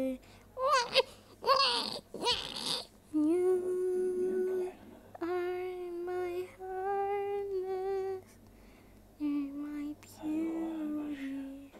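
A young voice singing a slow, lullaby-like tune without words, in long held notes of about a second each with short breaks between. It begins with a couple of seconds of high, wavering vocal sounds that swoop up and down.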